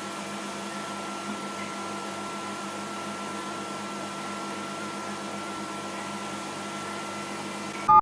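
Microwave oven running with a steady hum while heating bread, then its beeps start right at the end as the cycle finishes.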